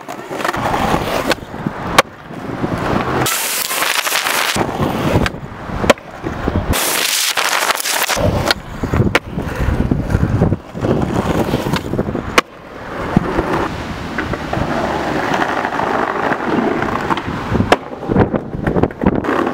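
Skateboard wheels rolling over pavement and concrete, broken by sharp clacks of the board's tail popping and the board landing, repeated over several tricks.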